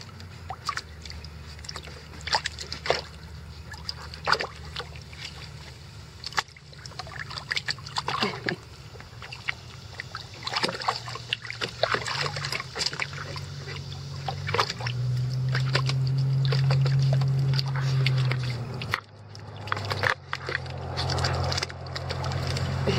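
Icelandic Sheepdog puppies splashing and paddling in the water of a plastic wading pool: many short, irregular splashes and sloshes. A low steady hum runs underneath, growing louder past the middle.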